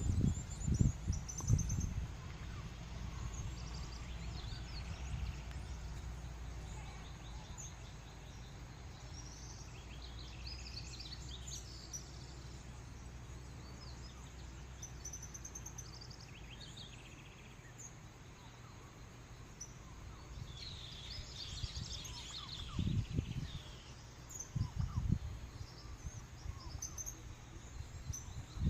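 Countryside ambience: scattered short bird chirps and calls over a steady low rumble, with bursts of low thumping rumble in the first two seconds and again around the three-quarter mark.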